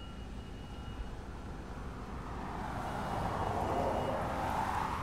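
A road vehicle passes, its engine and tyre noise swelling from about halfway through and fading near the end, over a steady low rumble.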